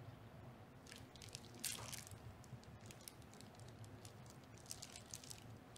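Faint crackling and squishing of gloved hands working a plastic-sleeved ultrasound probe and gel against the skin, with a slightly louder rustle just under two seconds in.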